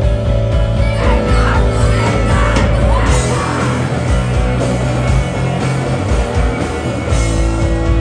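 Live rock band playing loud, with electric guitars, bass and drums and a woman singing over them.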